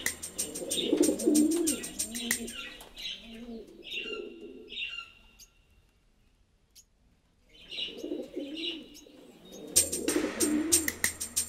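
Caged pigeons cooing, with the short chirps of small birds over them. The sound drops away to near silence for about two seconds midway, and there are a few clicks near the end.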